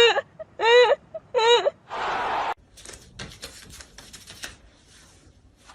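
An animal giving three short, high, arching cries, then a brief burst of hiss-like noise and a run of light rapid clicks.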